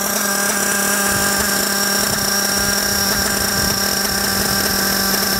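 Nitro glow engine of a 1/8-scale RC buggy idling steadily, a constant hum with a thin high whine above it, while its high-speed needle is turned counterclockwise to richen a mixture that was running lean and pinging at high speed.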